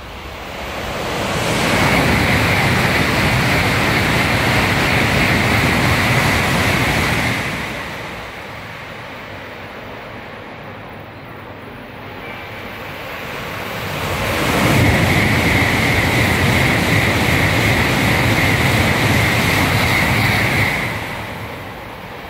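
Two Tokaido Shinkansen Nozomi bullet trains passing through the station at high speed, one after the other. Each pass swells in about a second to a loud rush of air and wheel noise with a steady high hiss, holds for about six seconds, then fades quickly.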